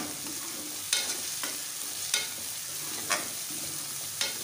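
Sliced onions and ginger-garlic paste sizzling in oil in a metal kadhai, with a metal spoon scraping and clinking against the pan about once a second as they are stirred.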